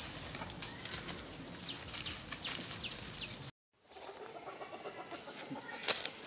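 Outdoor ambience with short, quickly falling bird chirps and clucking-like fowl calls over rustling and light clicks. The sound cuts out completely for a moment about three and a half seconds in, then resumes more quietly.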